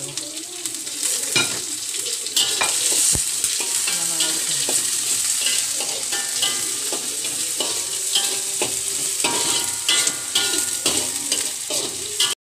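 Chopped onion, dried red chillies and curry leaves sizzling in hot oil in an iron kadai, with repeated scrapes and knocks of stirring against the pan. The sound stops abruptly near the end.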